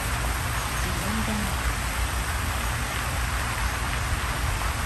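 Steady outdoor background hiss with a low, uneven rumble, and a brief murmur of a voice about a second in.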